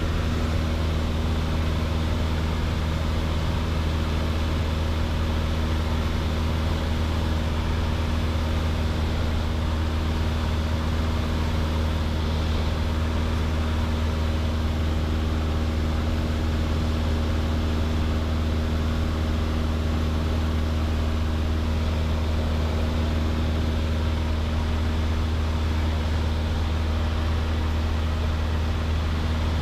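Piper PA-28's four-cylinder piston engine and propeller droning steadily, heard from inside the cabin: a deep, even hum with a set of steady engine tones above it and no change in pitch.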